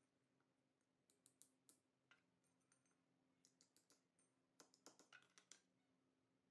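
Claw hammer tapping a small steel strip to bend it into an L bracket: faint, light taps in quick clusters, starting about a second in, again around three and a half seconds and in a denser run around five seconds.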